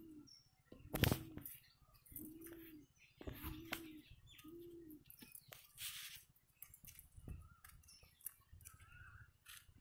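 A dove cooing faintly outdoors, a run of soft low coos about one a second for the first five seconds, with scattered faint clicks.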